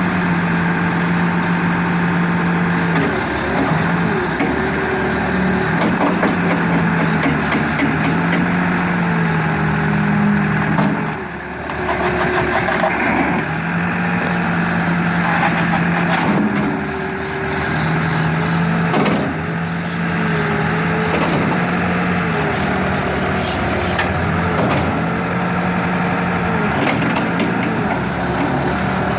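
New Holland B95 loader backhoe's diesel engine running continuously, its speed repeatedly dropping and rising again.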